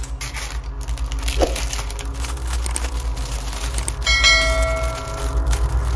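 Plastic packaging bag crinkling as it is handled, over background music with a steady low beat; about four seconds in, a bell-like notification chime rings out and fades.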